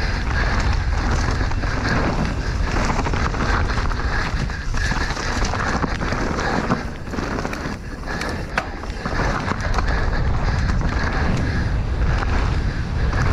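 Mountain bike riding down a rough enduro trail: tyres rolling over the dirt and the bike rattling, under heavy wind noise on the camera microphone. Two sharp knocks, about seven and eight and a half seconds in.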